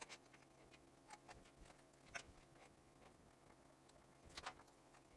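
Near silence with a few faint, scattered clicks and ticks of small wire terminals and hardware being handled, the loudest cluster about four and a half seconds in.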